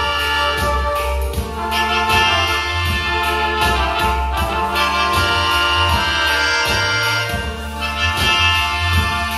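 Instrumental dance music with a melody over a steady, pulsing bass beat.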